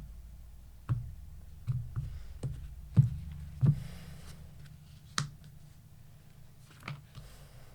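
Tarot cards being handled and laid down on a table: irregular soft taps and clicks, about eight in all, the loudest about three seconds in.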